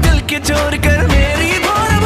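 Background pop song with a sung vocal melody over a steady beat and bass.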